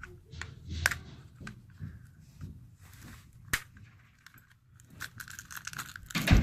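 Hard plastic toy capsule being handled and pried open: scattered sharp clicks and light rustling, with a louder knock near the end.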